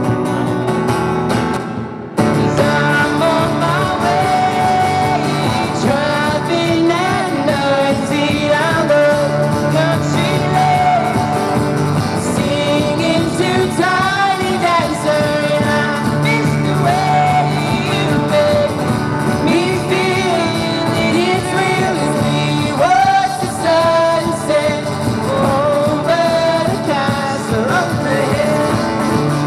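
Two acoustic guitars strummed while male voices sing a pop song cover into microphones through a small busking amplifier, with a brief dip in level about two seconds in.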